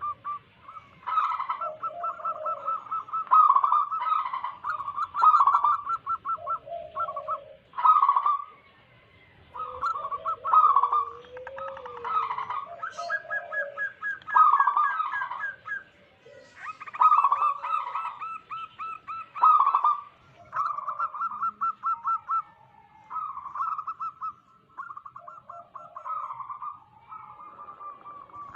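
Zebra doves (perkutut) cooing: one staccato trilled coo phrase after another with short gaps, several voices overlapping at times. The song of wild-type local birds, used as a lure call for catching doves and for prompting silent caged doves to sing.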